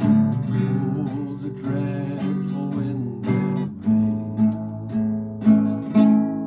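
Acoustic guitar strumming chords in an instrumental passage of a folk ballad, with no singing.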